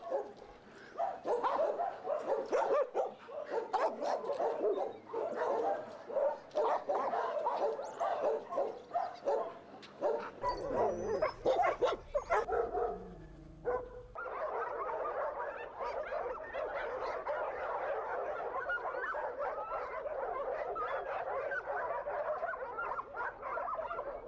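Dogs barking: scattered, separate barks at first, then from about halfway a dense, unbroken chorus of many dogs barking at once.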